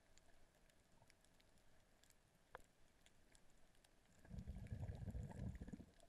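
Faint underwater sound picked up by a camera below the surface: scattered faint clicks and crackles, with one sharper click about halfway through. About four seconds in, a low muffled rumble of water moving lasts for under two seconds, then stops.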